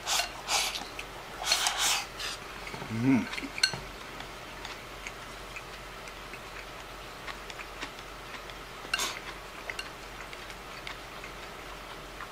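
Eating from a ceramic rice bowl: chopsticks scraping and clacking against the bowl as rice is shoveled into the mouth from the rim, with a short voiced hum about three seconds in. After that come sparse light clicks of the chopsticks picking at the last grains, and one more short scrape about nine seconds in.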